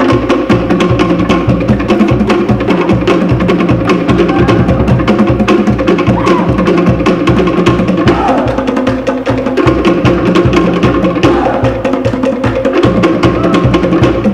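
Cook Islands drum ensemble playing a fast, steady drum-dance rhythm: wooden slit drums (pate) beating rapid strokes over a deep skin drum (pa'u).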